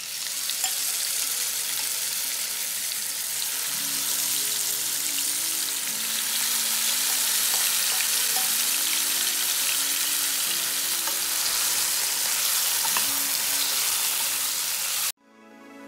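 Marinated chicken pieces sizzling as they fry on high flame in hot oil in a nonstick pan, with small pops and spatters. Faint music plays underneath. The sizzle cuts off suddenly near the end, leaving soft background music.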